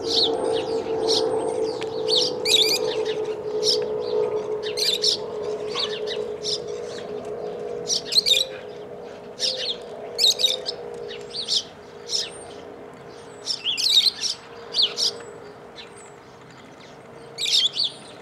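Feral parrots giving short, shrill, high-pitched calls, roughly one every second, with uneven gaps. A steady hum runs underneath and fades slightly toward the end.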